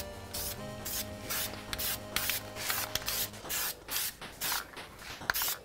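Aerosol spray-paint can hissing in short spurts, about two a second, as a light first coat of paint is dusted onto a brake caliper.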